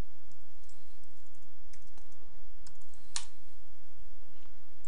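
A few scattered clicks of a computer mouse and keyboard, the sharpest a little past three seconds in, over a steady low hum.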